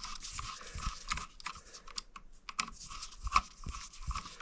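Small irregular clicks and taps of hand work on a light switch as a hooked black wire is fitted onto its bottom terminal screw.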